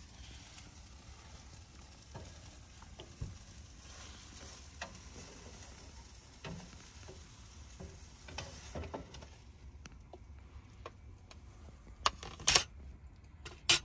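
An omelette sizzling in a hinged folding pan on a gas hob, with light clicks and knocks from the pan and utensils. The sizzle dies down about ten seconds in, and a couple of sharper knocks come near the end.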